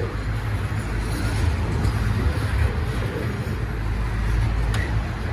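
Coal hopper wagons of a freight train rolling past at close range: a steady low rumble of steel wheels on the rails, with one sharp click near the end.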